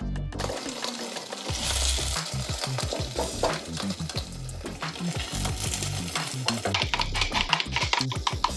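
Scallion pancake sizzling as it fries in a little oil in a nonstick frying pan, with a run of quick clicks and scrapes near the end.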